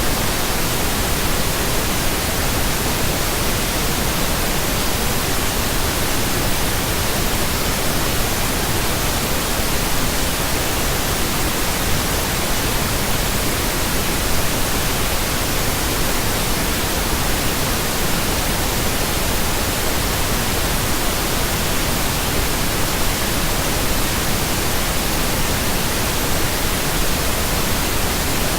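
Steady synthetic pink noise, an even hiss spread across the whole range, unchanging throughout.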